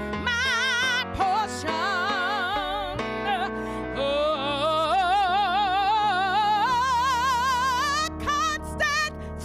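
A woman singing a slow song with a wide vibrato over sustained instrumental accompaniment; about halfway through she holds one long note that climbs in pitch.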